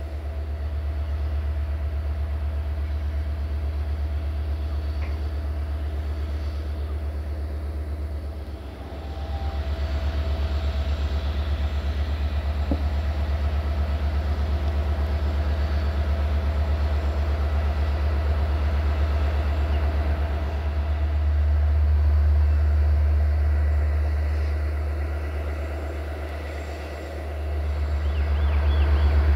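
Railway train sound: a steady, strong low diesel-engine rumble with rail and wagon noise over it. It dips briefly about a third of the way in and again near the end.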